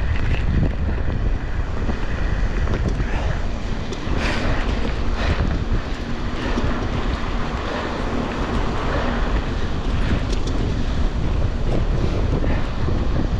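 Hurricane wind blowing hard across a GoPro's microphone on a moving bicycle: a loud, continuous rush with a deep buffeting low end. A faint steady hum sits under it for a few seconds in the middle.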